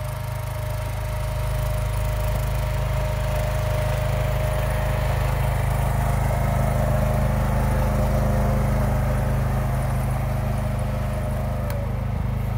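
John Deere garden tractor engine running steadily under load as it pushes snow with its front blade. A higher whine above the engine note steps up a little about halfway through and falls away near the end.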